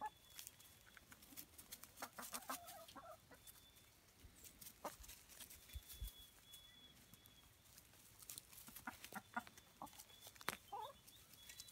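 Backyard hens clucking softly: a short run of low clucks about three seconds in and another near the end, with faint scattered clicks in between.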